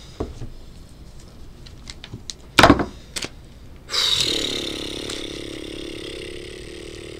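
A plastic package being cut open with a knife and handled: a sharp rip or thump about two and a half seconds in. From about four seconds in comes a sustained droning sound with steady tones that slowly fades.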